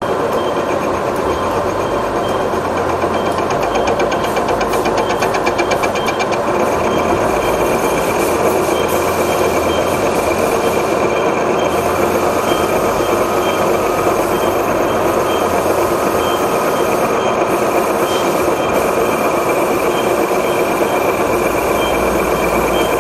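Horizontal milling machine cutting the T-slot of a stamping-press base plate: steady machining noise of the cutter in the metal over the spindle's drive, with a high ringing tone. A high tone also pulses about once a second.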